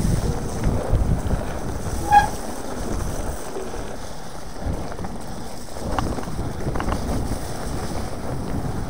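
Wind buffeting an action camera's microphone, with the low rumble of a mountain bike rolling along the trail. A short high beep comes about two seconds in, and a couple of light clicks come near six and seven seconds.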